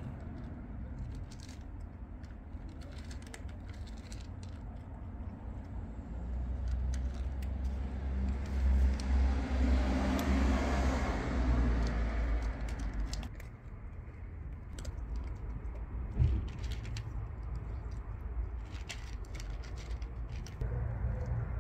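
A cat crunching dry kibble, with small irregular clicks throughout, bunched near the end. In the middle a passing vehicle's low rumble swells over several seconds and is the loudest sound, then drops away a few seconds later.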